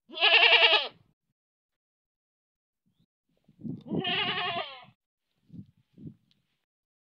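Domestic goat bleating twice. The first is a loud, quavering baa about a second long; the second, a few seconds later, trails off falling in pitch.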